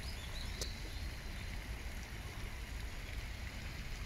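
Steady low outdoor rumble of background noise, with a single faint click just over half a second in.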